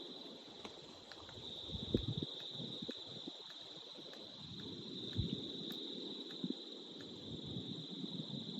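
Steady high-pitched chorus of night insects, crickets by their sound, with scattered low crackles and soft thumps, the loudest about two seconds and five seconds in.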